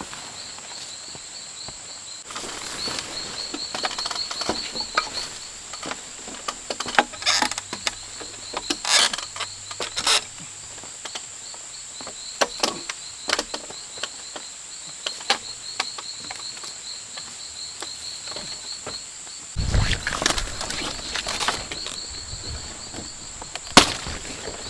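Rainforest insects keep up a steady high drone, with a faster pulsing chirp behind it, under scattered clicks and knocks from handwork. A louder rustling stretch starts near the end, and one sharp knock comes just before the end.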